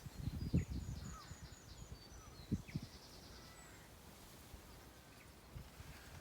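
Small birds chirping, with a quick run of high twitters in the first few seconds. Low rumbles come shortly after the start and again about two and a half seconds in.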